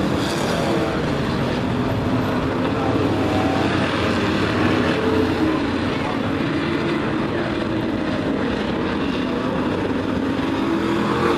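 A pack of sport-truck race engines running hard on a short oval, a continuous engine noise whose pitch drifts up and down as the trucks lift and accelerate through the turns.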